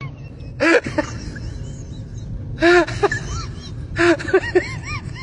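Short, high-pitched animal calls in three bursts. Each is a harsh cry followed by a few quick rising-and-falling notes.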